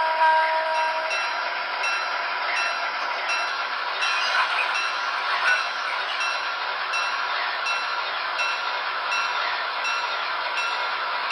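Onboard sound system of an MTH HO-scale Great Northern diesel locomotive model playing a steady locomotive running sound as the model rolls along. A horn-like chord stops about a second in, and light regular ticks come about every two-thirds of a second.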